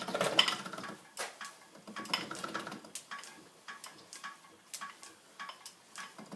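Treadle-driven milling cutter on a 1917 Drummond B-type lathe cutting a metal bar, with metallic clinking and chatter. It is loudest in the first second, then settles into lighter, irregular ticks and clinks as the cut goes on.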